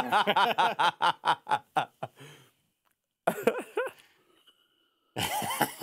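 A man laughing hard in quick repeated bursts, breaking off after about two and a half seconds; a short burst of laughter follows a brief silence, and laughing or talking resumes near the end.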